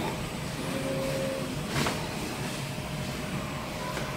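Steady low background hum of a room, with a brief soft rustle about two seconds in as clothes in a suitcase are handled.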